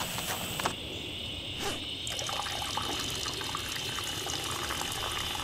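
A steady stream of liquid splashing and trickling: a person urinating.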